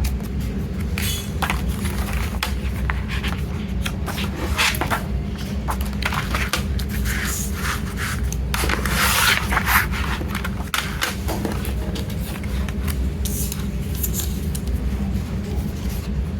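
Hands handling a CD single's packaging and case: repeated scraping, rustling and small clicks of plastic and paper, with a longer, louder scrape about halfway through, over a steady low hum.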